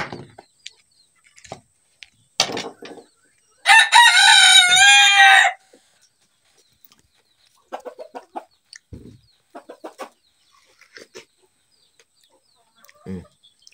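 A rooster crowing once, about four seconds in, a loud call of nearly two seconds with a slight fall in pitch at its end, among scattered short knocks and faint brief sounds.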